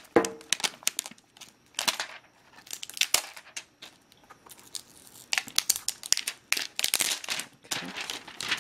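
Thin plastic wrapping crinkling and tearing as it is pulled off a new tablet, in irregular crackly spells with a quieter stretch a little before the middle.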